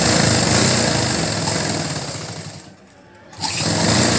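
Sewing machine stitching a folded cloth band onto a sleeve hem, running fast. It slows and stops briefly about three seconds in, then starts up again.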